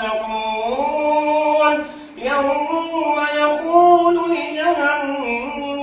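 A man chanting Quranic recitation (tajwid) unaccompanied, holding long drawn-out notes with melodic ornaments and bends. There is a short breath break about two seconds in.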